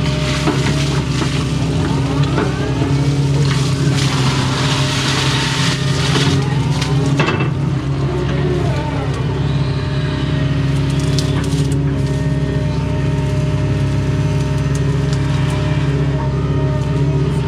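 Doosan excavator's diesel engine running steadily under load, with hydraulic whine rising and falling in pitch as the boom and bucket move. Scraping and knocking of the bucket working dirt in the ditch come through in the first half.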